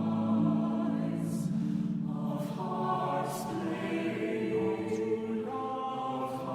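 Music: voices, choir-like, holding long notes in harmony that change together about once a second.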